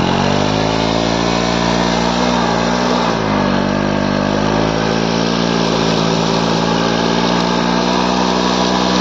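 Bajaj Pulsar NS motorcycle's single-cylinder engine held at high revs, its rear wheel spinning in place and digging into loose riverbed sand with the bike stuck. The revs sag slightly and recover about three seconds in, then hold steady.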